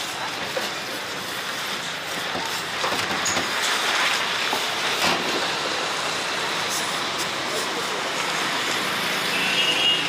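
Steady roadside traffic noise, with a few faint knocks and a brief high beep near the end.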